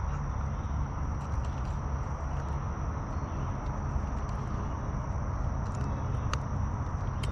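Steady outdoor ambience: a thin, high insect drone, like crickets, over a low rumble, with a few faint clicks.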